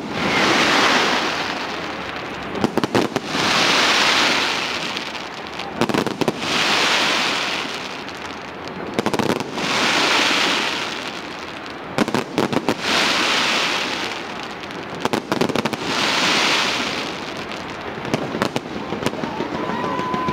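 Fireworks going off from a skyscraper: volleys of sharp bangs, each followed by a rushing hiss that swells and fades over about two seconds, repeating about every three seconds.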